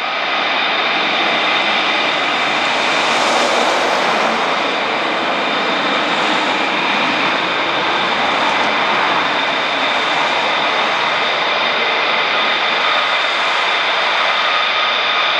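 Lockheed Martin F-35A's Pratt & Whitney F135 jet engine running, a steady loud rush of jet noise with a high-pitched whine held at several even pitches.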